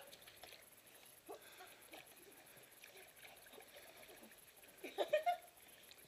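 Faint sloshing and lapping of pool water as a golden retriever swims and paddles. A short, voice-like sound comes about five seconds in.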